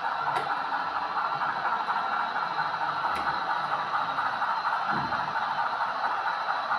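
Model railway locomotives running on the layout: the steady whirr of small electric motors and gears, with light clatter of wheels on the rails.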